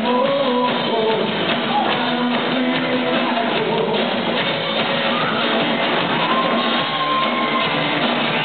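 Live rock band playing: amplified electric guitars over a drum kit, with a pitched lead line that bends up and down.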